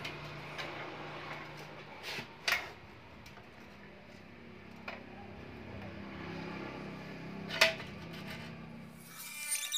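Bicycle front wheel being fitted into the fork: four sharp metal knocks, the loudest near the end, over a steady low hum.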